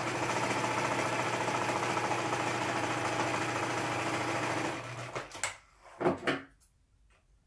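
Domestic sewing machine with a twin (double) needle stitching through knit fabric, running steadily for nearly five seconds and then stopping. After it stops come a few knocks and rustles of handling, the loudest a short knock about six seconds in.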